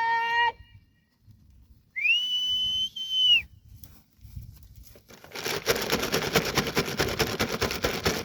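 A cat's brief meow, then one long, steady, high whistle held for about a second and a half. From about five seconds in comes a dense, fast rattling rustle.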